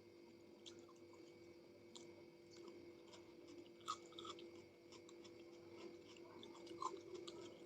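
Faint chewing of soft food: wet mouth clicks and smacks at an irregular pace, one sharper click about four seconds in, over a faint steady hum.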